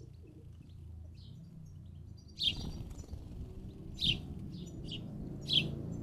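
House sparrows chirping: faint short calls at first, then three loud short chirps about a second and a half apart, with softer chirps between. A low rumble sets in underneath about halfway through.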